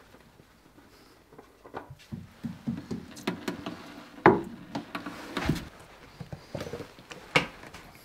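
Irregular clicks and knocks of tools and parts being handled during an engine oil change, with a louder knock about four seconds in and another near the end.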